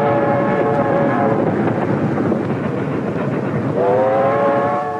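A train running close by, a steady rumble and clatter, with two long blasts of a locomotive whistle: the first ends a little over a second in, the second starts near the end.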